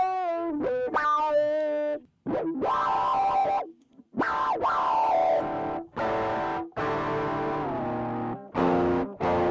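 Electric guitar played through an overdrive pedal. It starts with single notes with vibrato and bends, then moves to sustained chords that stop sharply several times, with a pitch bend about four seconds in.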